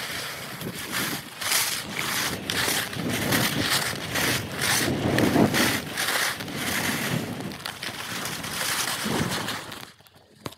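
Skis scraping and carving over packed snow in quick turns, a rapid run of swishes, sped up to double speed. The swishing drops away near the end.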